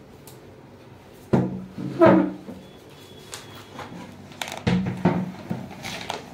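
Plastic chair scraped and dragged across a tiled floor and creaking as someone sits on it: two loud scrapes about a second and a half in, then more scraping and creaking about halfway through.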